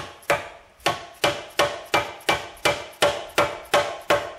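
A mallet repeatedly striking the aluminium lower unit (gearcase) of a Johnson 40 HP outboard, about three blows a second, each with a short metallic ring. The blows are meant to knock the lower unit loose from the midsection, which a bolt is still holding.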